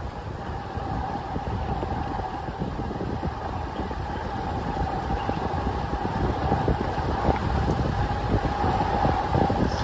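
Wind buffeting a moving microphone, with a steady whine from a motor vehicle running underneath and getting a little louder toward the end.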